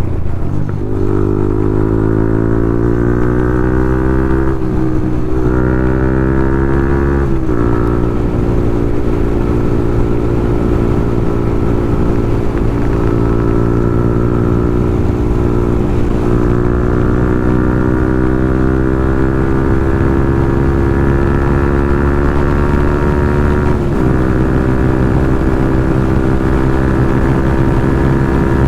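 Yamaha MT-15's single-cylinder engine through a loud Akrapovic full-system exhaust, accelerating under way and climbing in pitch through the gears. The pitch drops at upshifts about 5 and 7 seconds in and again near 24 seconds, with long steady pulls in between.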